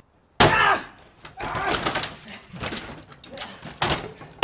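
An axe hitting a wooden door: one heavy blow about half a second in, followed by smaller knocks and rattling as the door is forced open.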